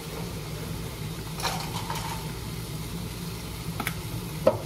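Steady low hum of a kitchen appliance such as a range-hood fan, with a few light clicks and taps of a spice jar being handled, the loudest near the end.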